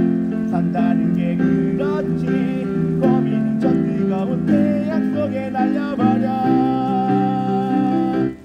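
A man singing live to his own Casio electronic keyboard accompaniment, ending on a long held note before the music cuts off suddenly.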